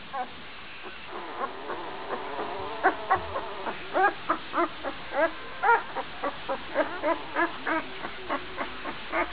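Twelve-day-old Gordon setter puppy barking: a quick run of short, high yelps, about three a second, starting about a second in.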